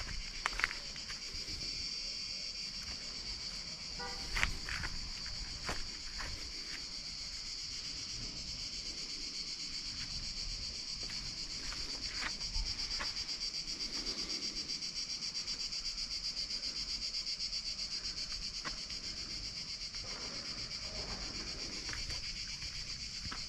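A steady chorus of cicadas buzzing, a high, continuous shrill. Scattered footsteps crunch on stone steps.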